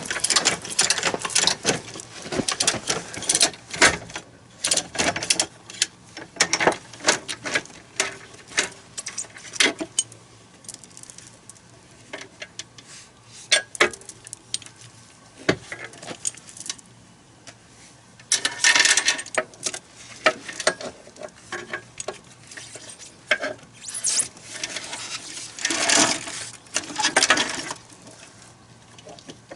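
Metal tools and bolts clinking and clicking while a rubber crawler track joint is being bolted together. The clicks come irregularly, with two denser rattling spells lasting about a second or more, one a little past the middle and one near the end.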